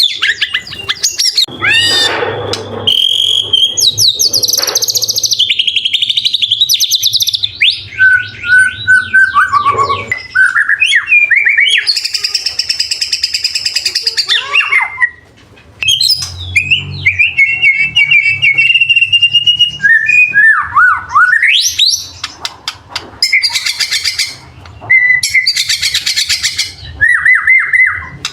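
White-rumped shama (murai batu) singing a long, varied song of rapid whistled sweeps, trills and held notes, broken by harsher buzzy phrases, with a short pause about halfway through.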